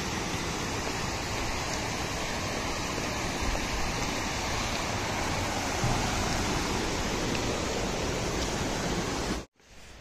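A small mountain stream cascading over boulders in a small waterfall: a steady, even rush of water that cuts off suddenly shortly before the end.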